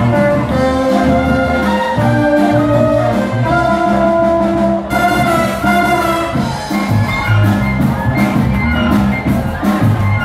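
Wind band playing live: sustained brass chords and melody over low bass notes. Cymbals and drums come in about halfway through, adding a steady beat.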